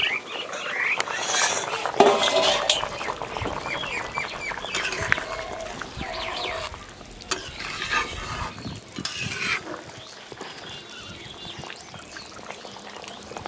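A spatula stirring a bubbling curry broth of potato and papaya in an iron kadai, scraping and knocking against the pan amid bubbling and sizzling. There is a sharp metal clank about two seconds in as the steel lid comes off the pot.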